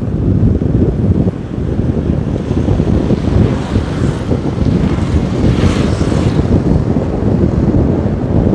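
Heavy wind buffeting on the microphone of a moving vehicle, with road rumble underneath. About six seconds in, a brief brighter hiss swells and fades.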